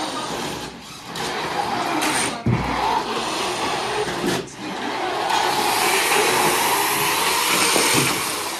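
FRC competition robot's electric drive motors and gearboxes whirring as it drives and turns across the carpet, the whir dipping and swelling with its speed and loudest in the second half. A single thump about two and a half seconds in.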